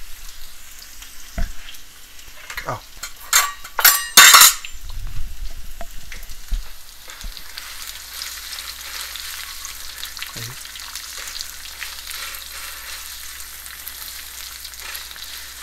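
Chopped red onion sizzling in hot oil with mustard seeds in a nonstick wok, stirred with a silicone spatula. A few sharp knocks and clatters come about two to four seconds in, the loudest of them near four seconds, then the frying settles into a steady sizzle with light scraping of the spatula.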